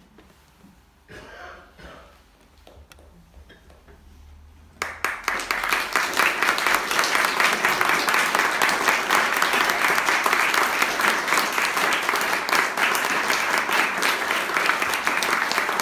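A quiet room for about five seconds, then a small audience suddenly breaks into applause, a dense steady clapping that keeps going.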